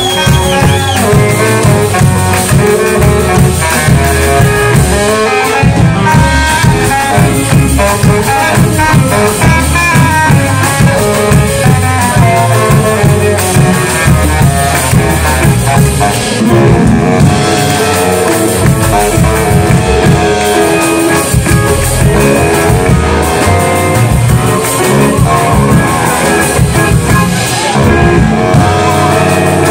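Live band playing an instrumental passage, a horn carrying the melody over upright double bass and drum kit.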